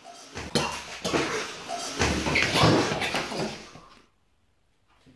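A man spitting out a mouthful of tea and spluttering, with noisy throat and mouth sounds that go on for about four seconds and then stop.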